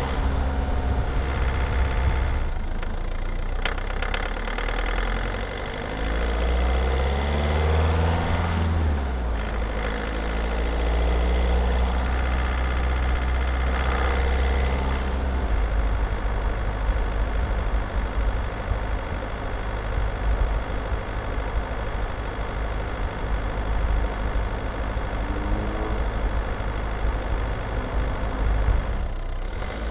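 Skoda Octavia 1.6 TDI (CAYC) four-cylinder common-rail diesel engine running while driving, picked up close from under the bonnet. Its pitch climbs as it pulls and drops back twice, then it settles into a steadier, rougher low drone.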